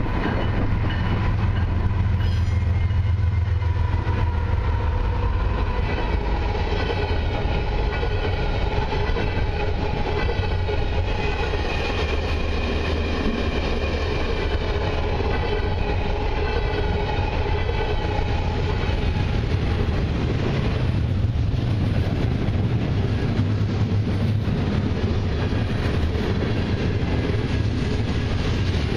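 A long freight train led by two GE diesel locomotives passing close by. The engines' heavy low rumble is strongest at the start, then the cars keep rolling past with steady wheel-on-rail clatter and a wavering metallic squeal through the middle.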